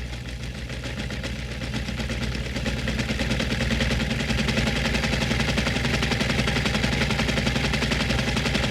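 Electric sewing machine running at speed, its needle mechanism making a fast, steady rattle that builds over the first few seconds and then holds.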